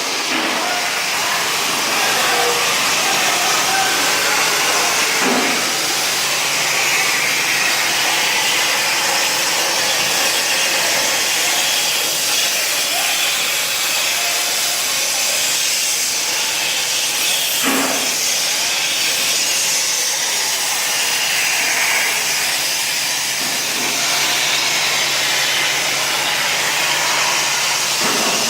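CNC plasma torch cutting: a steady, loud hiss of the plasma arc and its air jet, with a brief knock about five seconds in and again near eighteen seconds.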